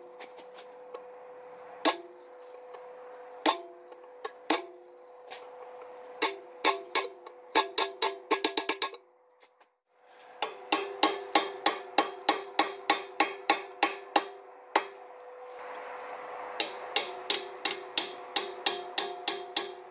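Blacksmith's hammer striking steel on an anvil, each blow ringing briefly. The blows are scattered at first, then come in quick even runs of about three to five a second. The sound drops out briefly about halfway, and a steady hum runs underneath.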